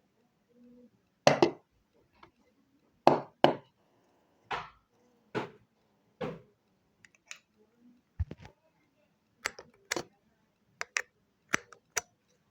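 A string of short, separate meme sound effects: about six brief loud bursts in the first half, then a quicker run of sharp clicks and knocks near the end.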